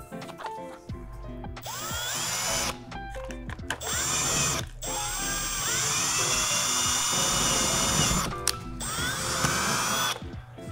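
Cordless drill boring into drywall in four runs. The motor's pitch rises as each run starts, and the longest run, in the middle, lasts about three seconds.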